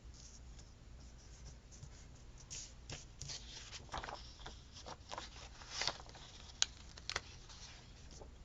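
Thin paper stickers being handled and pressed down onto a planner page: soft rustling and scraping of paper, getting busier about a third of the way in, with a couple of sharp little clicks near the end the loudest.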